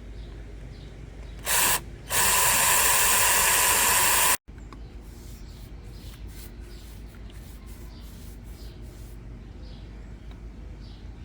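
Aerosol spray can spraying sealer: a short squirt, then a longer spray of about two seconds that cuts off suddenly.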